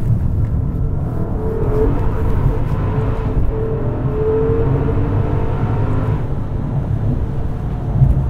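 Maserati Ghibli Trofeo's Ferrari-derived 3.8-litre twin-turbo V8 running as the car drives along a road, its note wavering slightly in pitch over steady road and tyre noise. The sound grows brighter for a few seconds midway, and there is a brief bump near the end.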